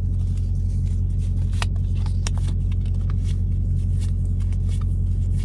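Steady low drone of an idling diesel truck engine, heard from inside the cab. A few soft clicks of trading cards being flipped through by hand sit over it.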